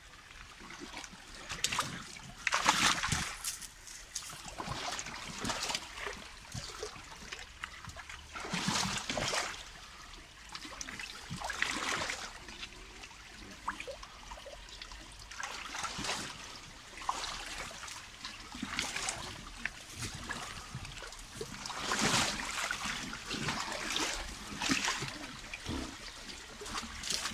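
Water splashing in irregular bursts every few seconds over a steady trickle of stream water.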